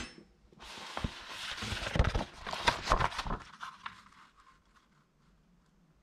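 A damp sheet of paper being peeled off a wet printing plate and handled: crackling, rustling paper that fades out about four seconds in. A sharp click comes at the very start.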